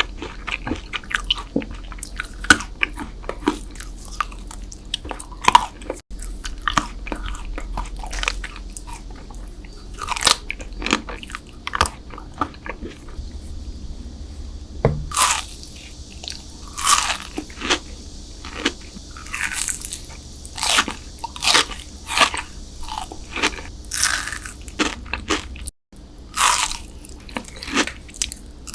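Close-miked eating of crunchy sweets: repeated crisp bites and crunching chews in quick succession, broken by two very short gaps about 6 and 26 seconds in.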